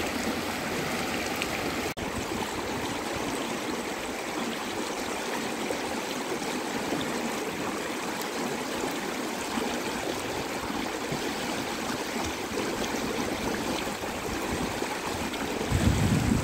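Fast-running river water rushing steadily over rocks and shallow rapids. A louder low rumble comes in near the end.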